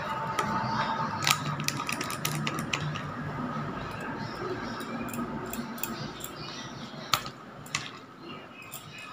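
A spoon clicking and scraping against a pot and a glass bowl while a thick spice paste is scooped and stirred: scattered light clicks, with a couple of sharper ones about seven seconds in.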